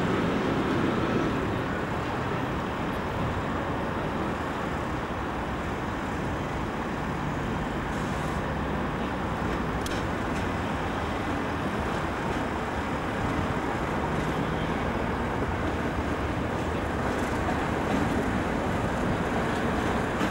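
Several coupled Class 37 diesel locomotives running as a light-engine convoy, their English Electric engines giving a steady rumble as they pass slowly.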